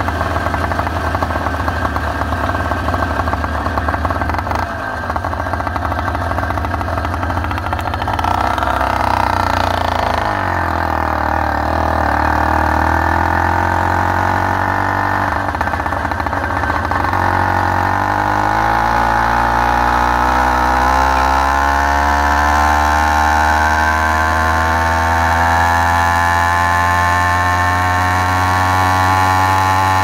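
Motorized bicycle's two-stroke kit engine running under way. Its note drops as the bike slows about ten seconds in, then climbs steadily from about seventeen seconds on as it accelerates.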